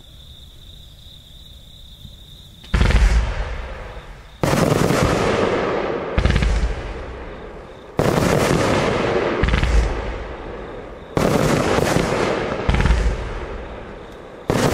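Thalia 30 mm fireworks cake firing. After a faint start with a steady high tone, it goes off in eight sudden loud volleys about every one and a half to two seconds, each fading out as a rush of noise.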